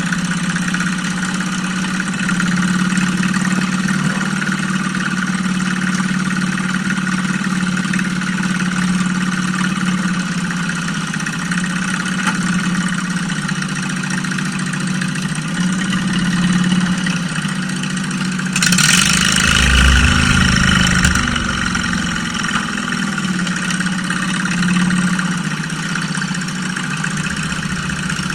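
A mud mower's small engine running steadily with slight shifts in pitch. Past the middle it works harder for about two seconds, with a louder rush of noise.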